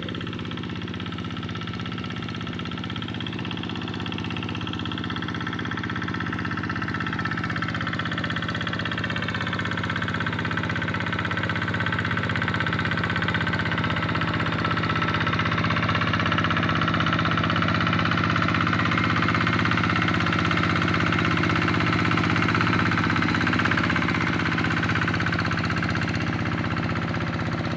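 Tractor engine running steadily while ploughing a rice paddy, growing louder over the first half and then holding level.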